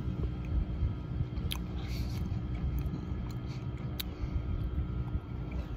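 A man chewing a sausage, egg and cheese McMuffin close to the microphone, with a few faint clicks, over a steady low rumble.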